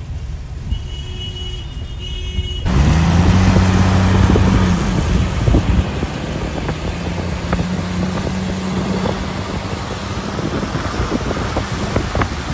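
Low road rumble inside a moving car. About three seconds in it gives way to a louder steady hiss of tyres on wet road and rain, with a steady engine drone that fades out later. Scattered sharp ticks come in near the end.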